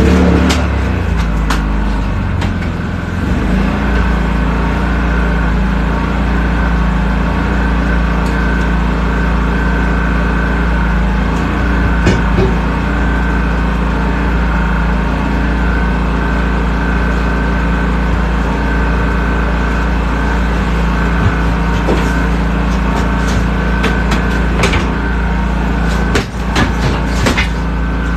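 Generator engine just started, settling in the first couple of seconds and then running steadily. A few sharp clicks come near the end.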